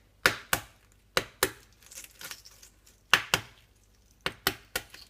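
Hard-boiled eggs being tapped against a wooden chopping board to crack their shells: sharp knocks, mostly in quick pairs, with softer crackling around two seconds in.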